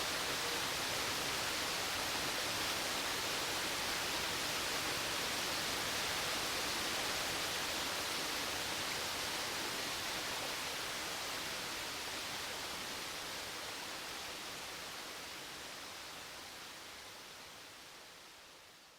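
Waterfall: the steady rush of water falling, which fades out gradually over the last several seconds.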